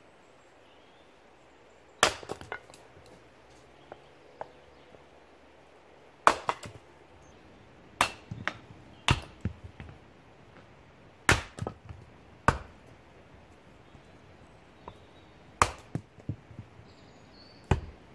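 Homemade axe chopping a log on a chopping block: about eight sharp strikes of the blade into wood, one every one to three seconds, each followed by a few lighter knocks.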